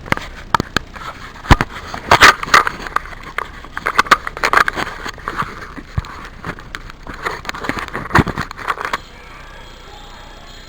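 Irregular sharp clicks and short scraping crunches of an airsoft player moving with his gear, stopping about nine seconds in.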